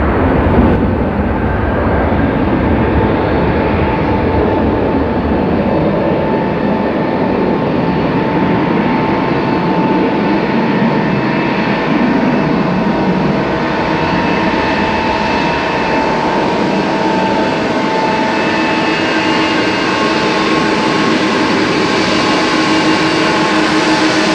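Boeing 777-300 jet engines and airframe rumble heard from inside the passenger cabin: a loud, steady noise with several whining tones above it, its higher hiss slowly growing.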